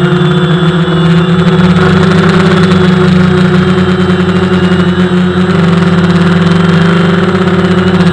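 DJI Phantom FC40 quadcopter's four motors and propellers whirring steadily in flight, as picked up by its own onboard camera, with the pitch shifting slightly about five and a half seconds in.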